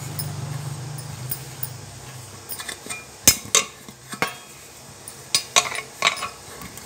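Stainless-steel idli steamer plates clinking and knocking as they are handled and greased with oil, with about six sharp metal clinks in the second half. A low hum sounds for the first couple of seconds.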